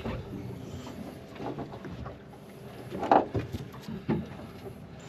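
Wind and water noise on an open boat at sea, with scattered small knocks and rustles of handling and a brief louder sound about three seconds in.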